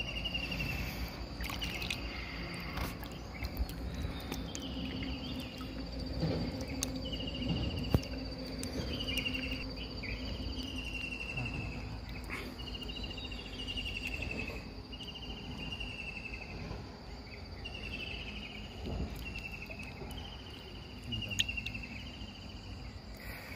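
Insects calling: a steady high buzz that stops about ten seconds in, and a short, slightly falling chirp repeated about once a second, with a few faint knocks.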